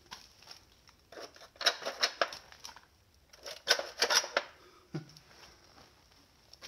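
Hungry Hungry Hippos game's plastic hippos clacking as their levers are pressed: two bursts of rapid sharp clacks, the first about a second in and the second about three and a half seconds in.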